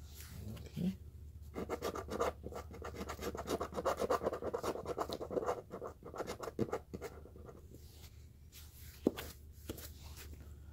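Scratch-off lottery ticket having its coating scraped off in fast, repeated strokes, busiest from about one and a half to six seconds in, then a few lighter scrapes and a sharp click near the end.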